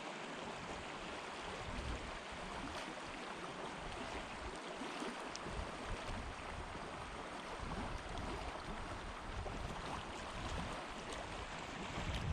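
River water flowing past the bank as a steady, even rush.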